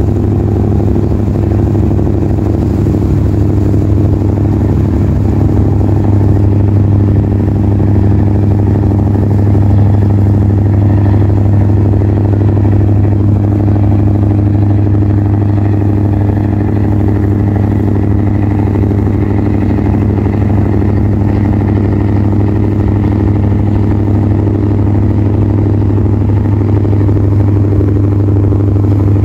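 Boat engine running at a steady speed: a loud, even drone with a strong low hum that holds without change.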